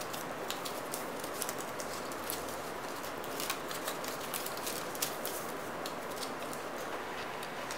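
Cut paper crackling and rustling as a folded paper-cut pattern is unfolded and pressed flat: many short, sharp crackles over a steady hiss.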